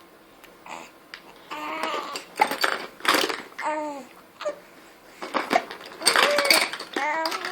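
A baby cooing and babbling: a run of short, pitched vocal sounds that bend up and down, starting about a second and a half in.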